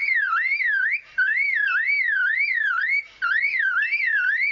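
Superb lyrebird mimicking a car alarm: a loud wailing whistle that sweeps up and down about three times a second, broken by two brief pauses.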